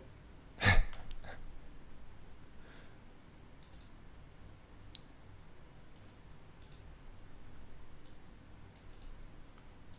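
A single loud knock just under a second in, then sparse, faint clicks in small clusters, like computer keys being tapped.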